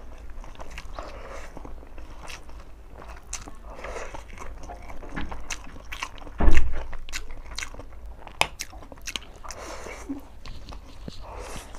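Close-miked slurping and chewing of forkfuls of chicken noodles, with wet mouth clicks and smacks throughout. A single loud low thump about six and a half seconds in.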